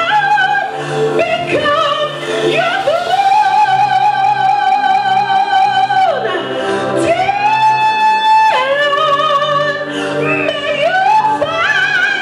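A woman singing a gospel song into a microphone over a sustained musical accompaniment. She holds two long notes with vibrato in the middle of the phrase.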